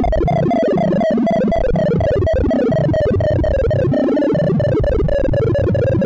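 Sorting-algorithm sonification: a rapid, unbroken stream of short synthesized triangle-wave tones whose pitch jumps with every comparison and swap, in quick falling runs. Each tone's pitch follows the height of the bar being touched as heap sort extracts the largest element and sifts the rest down the heap.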